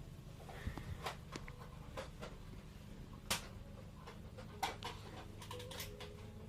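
Scattered light clicks and taps, a few seconds apart with a small cluster near the end, over a low steady hum; the sharpest click comes about three seconds in.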